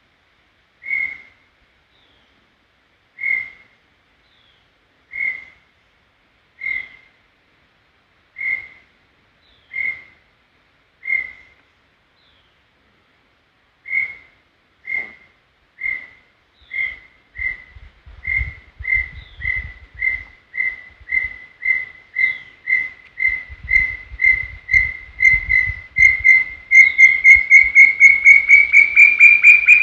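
Brown tinamou (inhambuguaçu) singing: single clear whistles about two seconds apart, then, from about halfway through, speeding up into a rapid run of whistles that rises slightly in pitch and grows louder toward the end.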